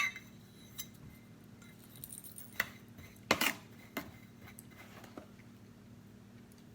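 Scattered light clinks and knocks of kitchen utensils and dishes as sugar is measured out, about half a dozen separate taps over a faint steady low hum.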